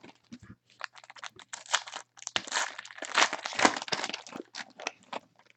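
A foil trading-card pack being torn open and its wrapper crinkled, in quick, irregular crackles.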